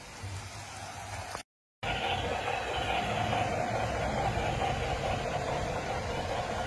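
Large-scale garden model train running along the track, a steady mechanical hum and rumble. It starts after a brief dropout to silence about a second and a half in.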